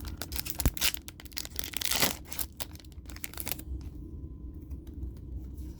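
Foil booster pack wrapper crinkling and being torn open, with cards handled; a longer rip about two seconds in.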